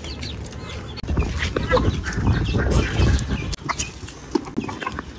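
Chickens clucking and calling. From about a second in to about three and a half seconds, a louder low rumbling noise sits under the calls.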